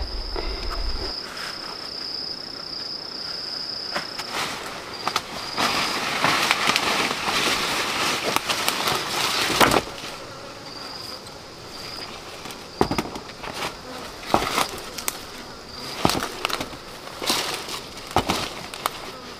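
An insect's high, steady trill that breaks off and resumes, with a louder stretch of rustling noise in the middle and a series of sharp knocks in the second half.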